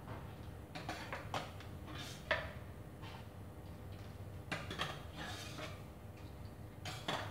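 Metal spoon clinking and scraping against a tin can and a plastic cup as canned lychees are scooped out and dropped in. It comes in a few scattered clusters of light clinks, the sharpest about two seconds in.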